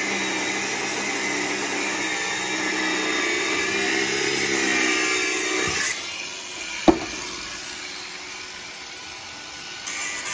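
Abrasive disc cutter cutting through steel, running steadily, then stopping about six seconds in. A single sharp knock follows about a second later.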